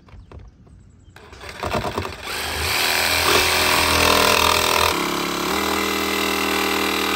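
Cordless DeWalt jigsaw sawing through the sheet-steel roof of a Mercedes Sprinter van, cutting the square opening for a roof fan. It starts about a second in, choppy at first, then runs loud and steady, its tone shifting a little about five seconds in.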